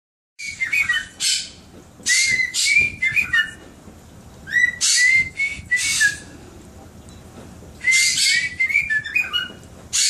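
Pet cockatiels calling: harsh, screechy chirps mixed with short whistled notes, in four bouts of about a second each with brief pauses between.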